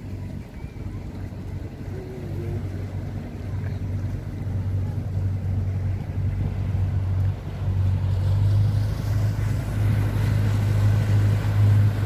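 Motorboat engine running with a steady low hum that grows steadily louder as the boat approaches.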